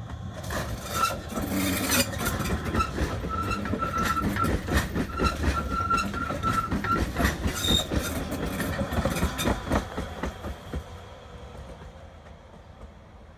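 RBS electric commuter train passing close by, its wheels clicking and clattering over rail joints and points, with a thin high squeal that comes and goes. The sound fades away about ten seconds in.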